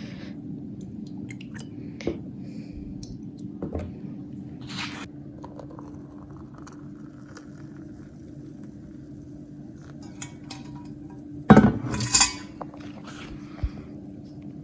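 Small clinks and knocks of a spoon and ceramic mug on a kitchen counter while coffee is fixed with creamer, with a louder clatter near the end. A steady low hum runs underneath.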